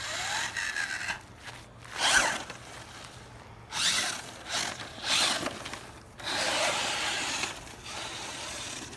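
Radio-controlled car driven over grass in short bursts of throttle: its motor whines, rising and falling in pitch with each burst, several times over, with tyres scuffing through the grass.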